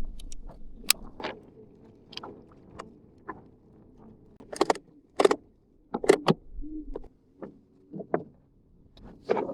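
Irregular knocks and clunks on a small boat, about a dozen sharp strikes, the loudest coming in a cluster around the middle.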